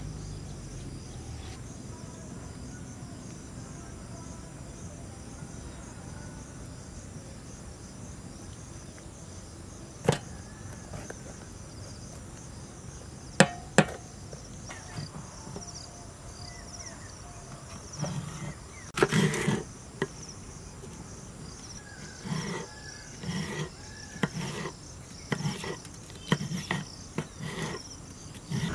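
Kitchen knife chopping green bell pepper on a wooden chopping board: a few separate knocks, then a quick run of chops in the last third. Steady insect chirring underneath.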